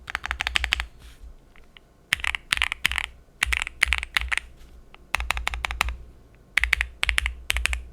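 Typing on an Owlab Jelly Epoch mechanical keyboard with lubed and filmed Gateron KS3 Yellow linear switches on 62g springs, a polycarbonate plate and GMK Modolight keycaps. Quick runs of keystrokes come in bursts separated by short pauses of about half a second to a second.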